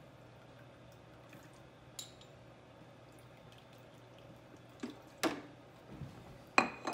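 White wine vinegar poured and dripping from a measuring spoon into a plastic food processor bowl, faint. A few sharp clicks and knocks near the end, the loudest just before it ends.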